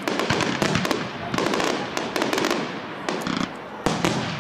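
Aerial firework shells bursting in quick succession: a dense run of bangs and crackling, with one sharper bang near the end.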